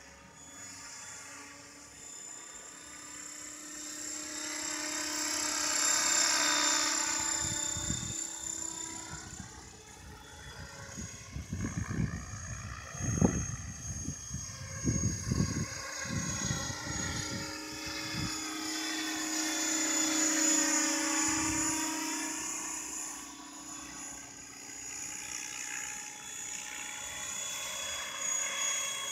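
Radio-controlled model helicopter flying overhead: a steady high whine from its rotors and drive that swells and fades twice as it passes back and forth. Irregular low thumps come in a cluster through the middle.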